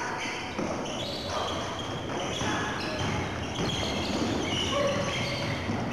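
Basketball game sounds in a gym: a ball bouncing on the court amid indistinct voices of players and spectators.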